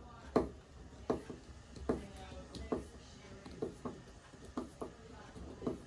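A Phillips screwdriver driving in the screw that holds a new Moen shower handle in place, with a short click or creak about once a second as it turns.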